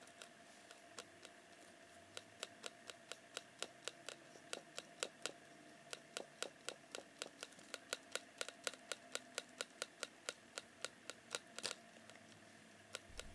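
A plastic water pen being dabbed on the page of a water-reveal paint book: faint, quick light taps, about three or four a second.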